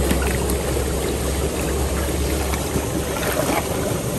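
Shallow stream water running steadily, with light splashes as hands stir the muddy water to drive fish into a push net.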